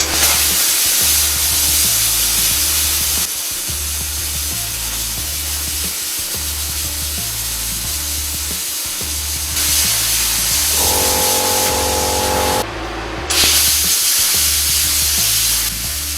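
Electric welding arc sizzling in three bursts of a few seconds each, starting and stopping abruptly, over background music with a steady bass line.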